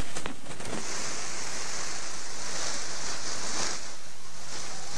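Peacock shivering its raised, fanned train in courtship display, a dry rustling hiss of rattling feathers that swells and eases a few times.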